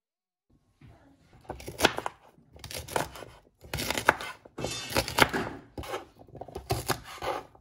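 Kitchen knife cutting asparagus spears on a wooden cutting board: a run of slicing strokes about a second apart, each ending with the blade knocking on the board, starting about a second in.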